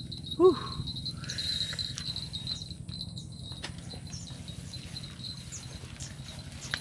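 Insects chirring steadily in the grass over a low steady hum, with one short call falling in pitch about half a second in.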